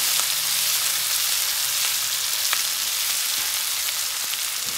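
Chopped onions, mushrooms, green chillies and capsicum sizzling steadily as they fry in a pan, with a couple of light clicks.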